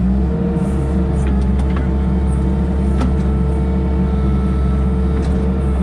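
Machine engine running steadily under load, with a steady whine over the hum and a few light clicks.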